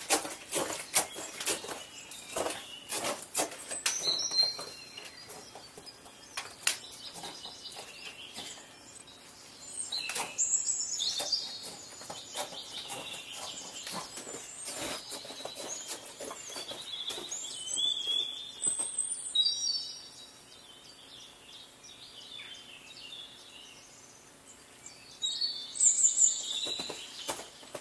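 Footsteps and the clicks of trekking-pole tips on ice and rock, thickest in the first few seconds and again near the end, while small birds chirp and sing in short phrases several times.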